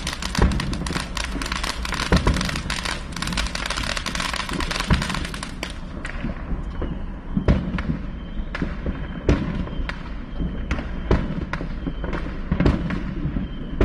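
Fireworks going off: a dense crackle of many small bangs for about the first six seconds, then separate sharp bangs about twice a second.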